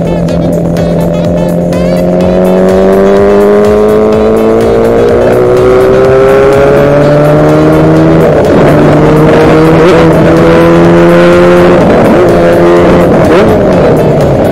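A 250 cc two-stroke engine swapped into a Honda Gorilla mini bike, heard while riding. It climbs in pitch as the bike accelerates, drops at a shift about eight seconds in, runs steadily, then changes again near the end.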